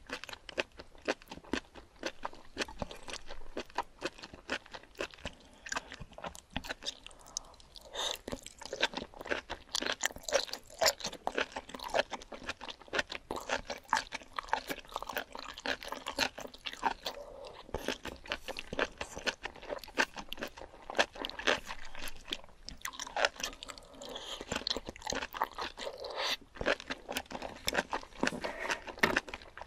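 Close-miked eating sounds of enoki mushrooms in spicy red sauce: a dense, uneven run of wet clicks from chewing, with slurping as the strands are drawn in.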